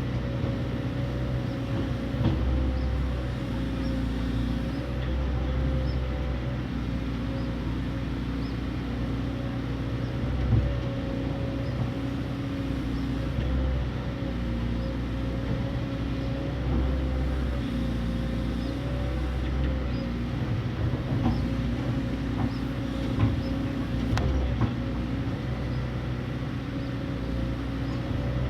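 Excavator's diesel engine running under working load, with a steady whine over it. The low engine note swells and eases every few seconds, and there are a few sharp knocks.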